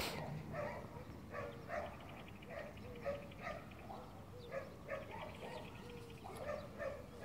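Dog whining softly in short, repeated whimpers that recur every half-second or so.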